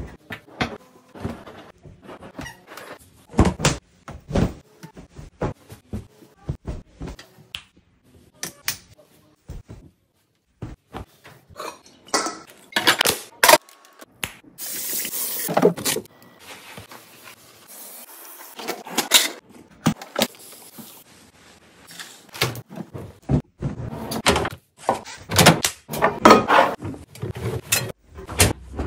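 Household cleaning sounds in quick succession: laundry rustling as it is handled and loaded, with many short knocks, clicks and clatter of things being picked up and put down, and a few longer rustling stretches.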